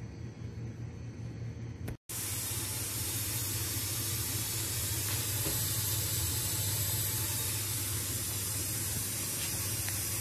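Steady hiss from a dough-sealed pot of mutton cooking on a gas burner at medium-low flame, with a low hum underneath; it starts after a short break about two seconds in.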